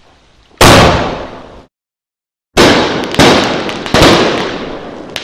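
Two-inch multiple star bomb aerial firework shell going off: one loud bang that cuts off abruptly, then after a short silence three sharp bangs in quick succession, about half a second apart, each trailing away, with a small crack near the end.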